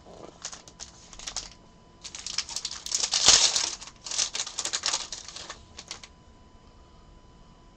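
Trading cards and their packaging being handled: a few separate clicks, then about four seconds of dense rapid clicking and rustling, loudest a little before the middle, stopping abruptly.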